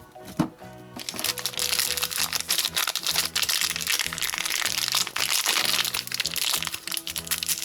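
Plastic packaging crinkling and crackling as a blind-pack toy wrapper is handled and torn open, over background music. A single sharp click comes just before the crinkling starts, about a second in.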